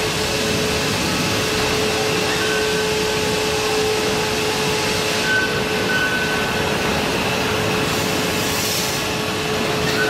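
Medium-frequency induction furnace running while melting a charge of baled scrap: a steady, even roar of noise with one constant hum-like tone held through it.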